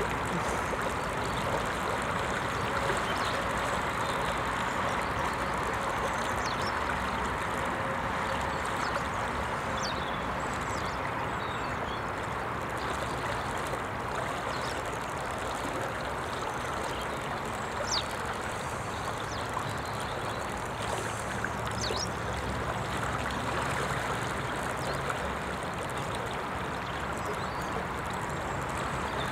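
Steady rush of a river flowing over gravel shallows, with a few brief high chirps now and then.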